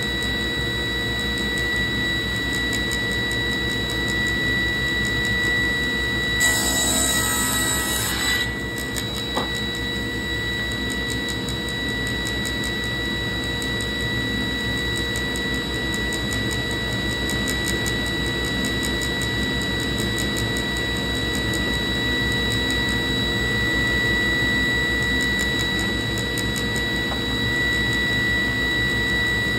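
Table saw running steadily with a constant high whine and hum. A brief louder hiss comes about six seconds in.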